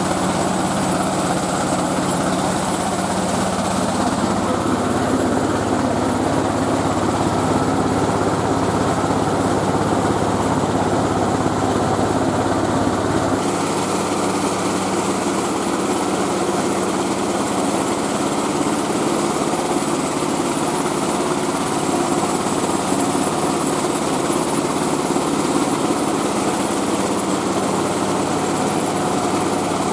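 Mobile rice-milling machine running steadily, its engine and milling machinery making a continuous mechanical drone. About 13 seconds in, the deepest part of the hum drops away and the running sound carries on.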